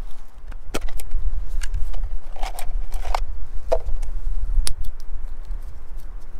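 Gusty wind rumbling on the microphone, with about eight scattered sharp clicks and clacks as small gear is handled among loose shale stones. The sharpest click comes near the end.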